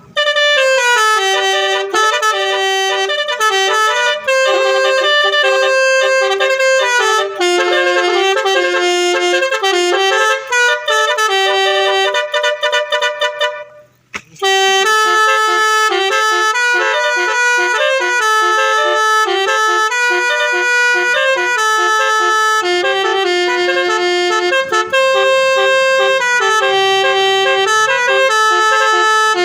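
Bus telolet horn, a set of multi-tone air horns, playing a melody note by note. About halfway through it stops for under a second, then the tune starts again.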